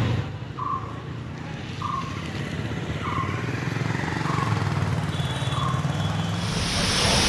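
A vehicle engine running with a short beep repeating about every second. Near the end a loud rush of heavy rain comes in.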